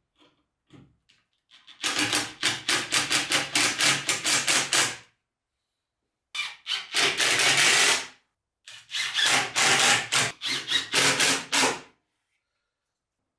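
Cordless impact driver hammering screws into a plywood cabinet panel in three bursts: about three seconds, then a shorter one, then about three seconds more, each a fast rattle of impacts.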